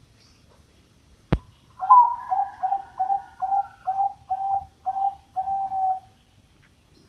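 Bangkok-line zebra dove (perkutut) singing: a quick run of about ten short coos, the first pitched a little higher and loudest, ending on a longer held coo. A single sharp click sounds just before the song starts.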